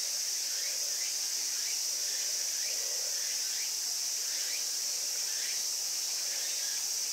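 Steady high-pitched insect chorus droning outdoors, with faint short chirps repeating about once a second.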